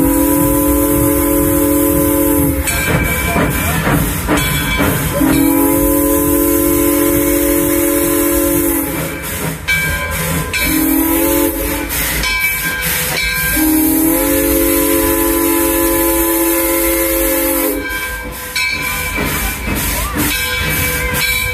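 Alco #18 steam locomotive's whistle sounding several notes at once in four blasts, long, long, short, long: the standard grade-crossing signal. Under it runs the steady hiss and rumble of the moving train.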